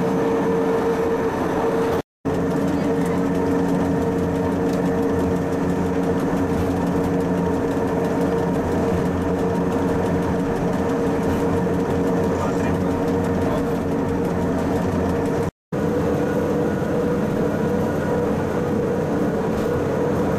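Steady running hum of a mountain vehicle heard from inside its cabin, a constant pitched drone over a noisy rumble. The sound drops out briefly twice.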